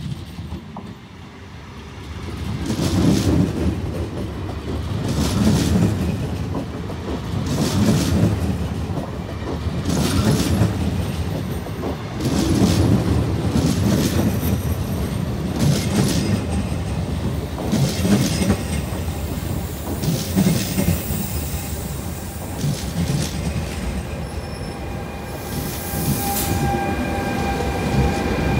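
Slow train of two broken-down electric multiple units, an ETR104 and an ETR350, hauled by an E464 electric locomotive, passing close by. The wheels clatter over rail joints in heavy rhythmic beats about every two and a half seconds, with some wheel squeal. Near the end a steady whine comes from the passing locomotive.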